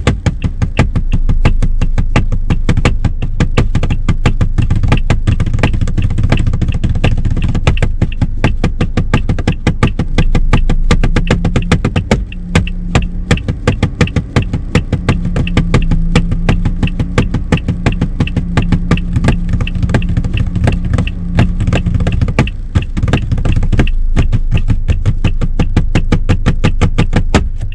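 A fast drumming rhythm, the Thai 'pha mak' beat, tapped out by hand in time with a car's hazard-light flasher ticking, over the engine idling. The taps run on densely, several a second.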